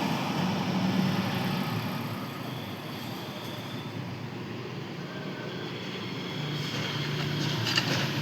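Steady low mechanical hum over even background noise, with no distinct tool strikes.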